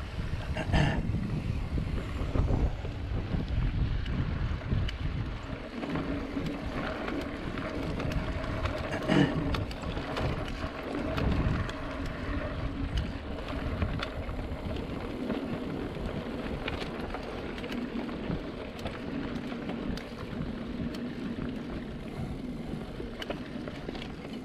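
Mountain bike ridden along a dirt trail: wind buffeting the microphone over the rumble of the tyres, with frequent rattles and knocks as the bike goes over bumps. A faint steady hum comes in about six seconds in.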